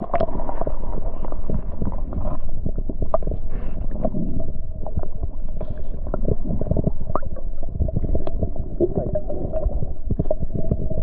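Muffled underwater sound from a camera submerged in a river: a low water rumble with many small clicks and knocks. It begins and cuts off abruptly as the camera goes under and comes back up.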